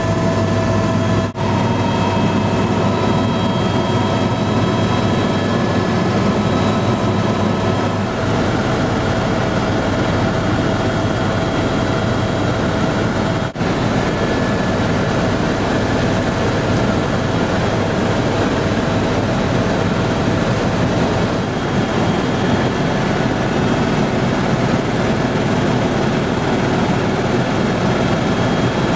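Helicopter engine and rotor noise heard inside the cabin in flight: a steady, loud drone with a constant whine over it, dropping out for an instant twice.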